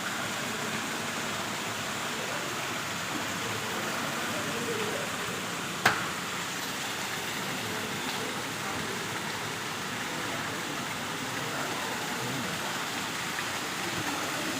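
Small waterfall pouring into a koi pond, a steady splashing rush of water. One sharp click or knock about six seconds in.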